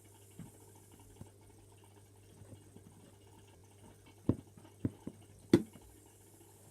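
Slime being squeezed and worked by hand: soft wet squelches and small pops, with four sharper, louder pops between about four and six seconds in.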